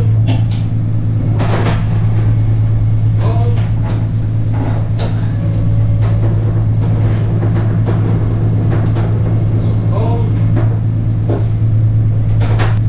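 An engine running steadily with a low drone, with scattered knocks and creaks as the skidded lathe is moved across the box truck's floor.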